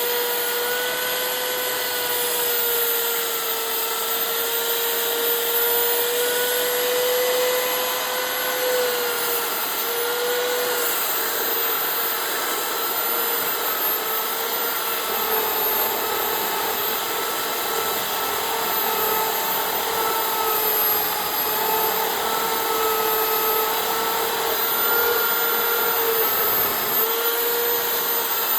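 Handheld electric power tool running continuously at high speed while working wood: a steady motor whine that wavers slightly in pitch over a hiss of abrasion.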